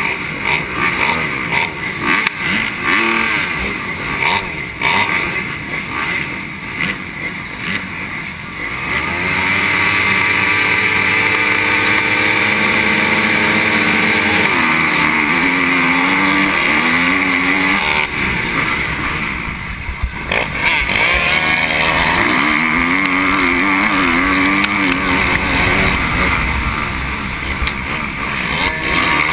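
Motocross bikes on the starting line: a Honda dirt bike's engine is blipped unevenly, then held at high revs for several seconds waiting for the gate. About halfway through it launches, and the revs rise and fall as the bike accelerates through the gears, with a brief drop in the engine note a few seconds later.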